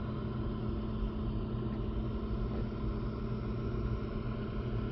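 480-volt commercial HVAC heating unit running steadily: a low rumble with a constant hum, the unit working normally and blowing heat.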